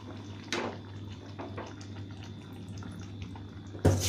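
Thin curry simmering in a pan while a plastic ladle stirs it: soft bubbling and liquid sloshing. There is a light knock about half a second in and a louder knock of the ladle against the pan near the end.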